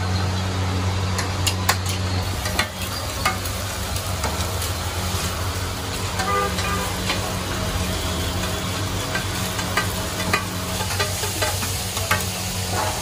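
Burgers frying and sizzling on a large flat iron griddle, with a metal spatula and knife repeatedly clacking and scraping against the hot plate. A steady low hum runs underneath.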